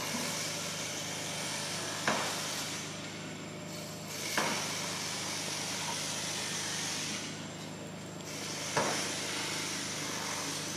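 Steady hiss that swells and fades slowly, with three sharp clicks a few seconds apart.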